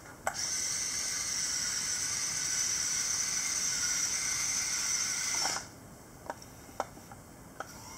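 Small electric motors and gears of a radio-controlled toy Komatsu excavator whining steadily and high-pitched as it drives forward on its tracks, starting with a click and cutting off suddenly after about five and a half seconds. Three light clicks follow near the end.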